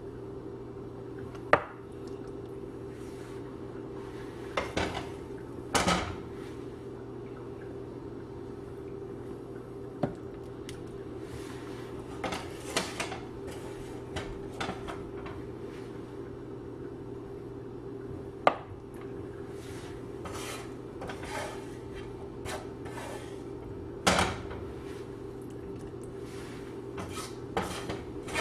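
Scattered clinks, knocks and scrapes of a utensil on a stainless steel divided plate as spiced fried onion mixture is spooned into its compartments, over a steady low hum.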